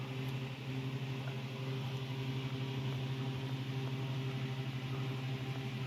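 Steady electrical hum with an even hiss, from equipment running in a grow tent.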